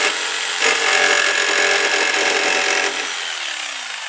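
Corded jigsaw sawing through the sheet-steel side panel of a VW T25 van, cutting the opening for a mains hook-up socket. About three seconds in it is switched off, and the motor winds down with a falling whine.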